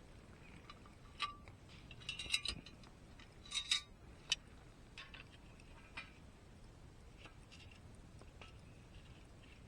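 Light clinks and clicks of small hard objects being handled, in a few quick clusters over the first half, then fainter taps.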